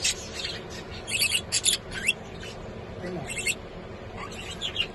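Budgerigars chirping in short, high chirps that come in quick clusters, with the busiest run about a second in and a few more near the end.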